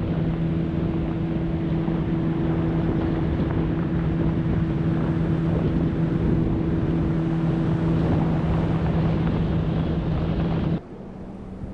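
Boat's outboard motor running steadily with an even hum while the boat is underway, with water rush and wind on the microphone; it cuts off suddenly near the end.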